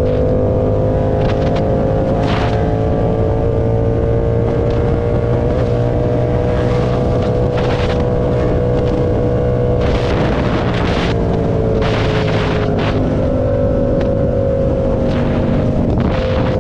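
A motorcycle engine running at a steady cruising speed, with a droning pitch that eases down a little about ten seconds in and then holds. Short rushes of noise come and go over it.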